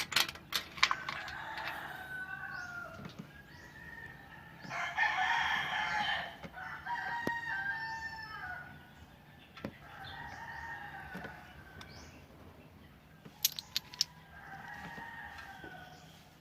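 A rooster crowing several times, each crow lasting a second or two, with a few sharp clicks near the start and again near the end.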